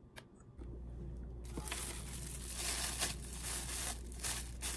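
Clear plastic wrapping crinkling as a camera lens is handled and unwrapped from it, starting about a second and a half in and going on in uneven rustling bursts.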